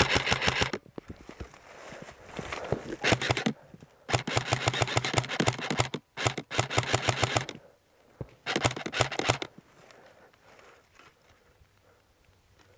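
An airsoft gun firing on full auto in several bursts of rapid, evenly spaced shots, each about a second or two long with short pauses between them.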